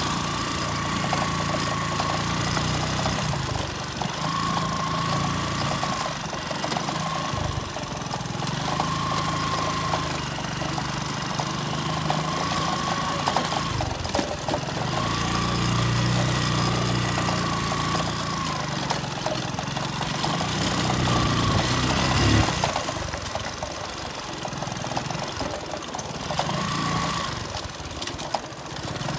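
A machine's engine or motor running steadily, with a high whine that comes and goes again and again.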